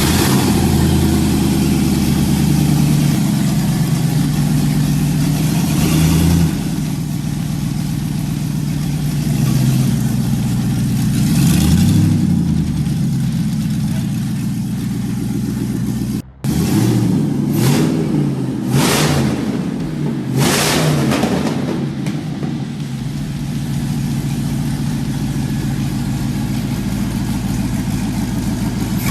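Car engine running at a lumpy idle and revved up and back down several times, with a brief break in the sound just past halfway.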